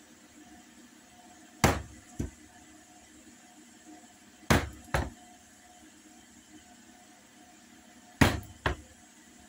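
Mallet striking a hole punch to punch holes through a sheath pattern: three pairs of sharp blows, each a hard strike followed by a lighter one about half a second later.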